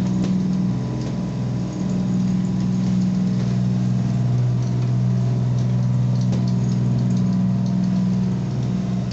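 A motor vessel's diesel engines running steadily, a constant low drone.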